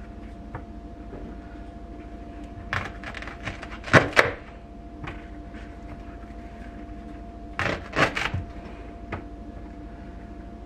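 Knife cutting leeks on a hard glass cutting board: two short runs of sharp knocks about four seconds apart, the loudest near the middle, with a few single taps between. A steady hum sits underneath.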